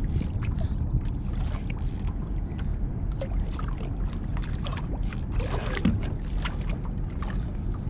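Steady low rumble aboard a small fishing boat, with scattered light clicks and knocks over it while a fish is played to the landing net.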